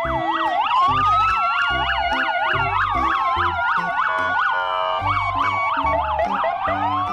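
Several police car sirens sounding at once: a fast yelp sweeping up and down about three times a second over slower wails that rise and fall. A rhythmic music beat runs underneath.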